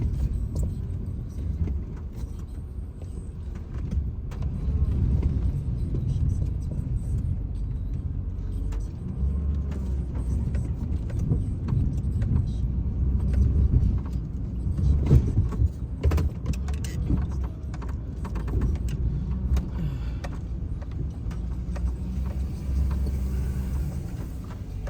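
Snowplow truck's engine running under changing load while pushing snow, rising and easing, with scattered rattles and knocks, a cluster of them about two-thirds of the way through.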